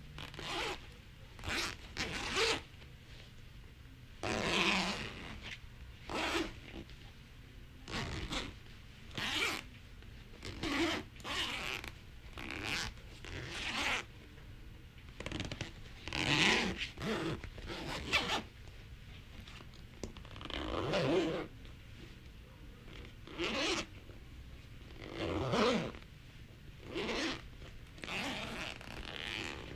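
A zipper pulled open and shut again and again, some quick short zips and some longer drawn-out ones, about one every second or two.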